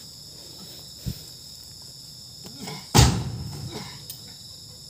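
Oil palm fruit bunches landing in a truck's cargo bed as they are tossed up: a dull thud about a second in, a few lighter knocks, then the loudest thud about three seconds in, which dies away over about a second. Insects trill steadily in the background.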